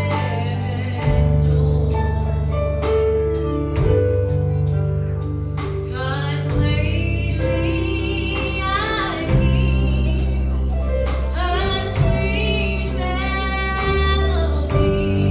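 Gospel song: a female voice singing over a band with deep held bass notes and steady drum and cymbal strokes.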